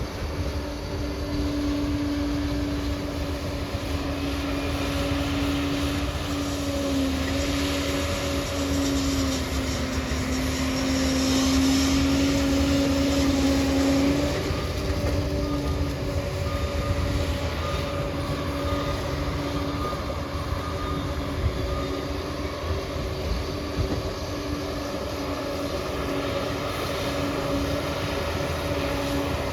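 A motor running steadily with a held hum, its pitch dipping slightly now and then, over a constant rushing noise.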